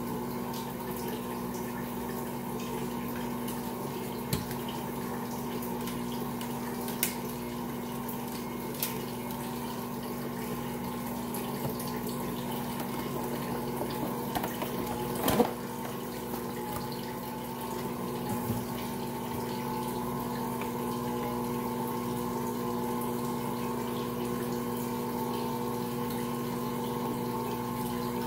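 Ankarsrum stand mixer running steadily, its motor humming while the turning bowl kneads a large, heavy batch of bread dough against the roller and scraper. A few short knocks cut through, the loudest about halfway through.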